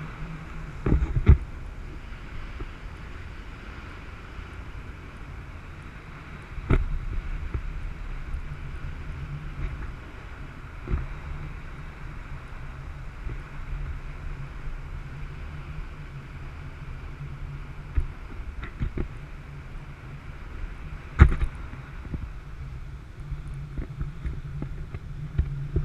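Motorboat engine running steadily under wind hiss, with a few sharp thumps, the loudest about 21 seconds in.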